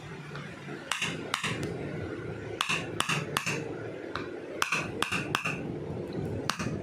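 Sharp metallic clicks, each with a short ringing note, coming singly and in quick groups of two or three: a hand-held chiropractic adjusting tool striking, over a steady low hum.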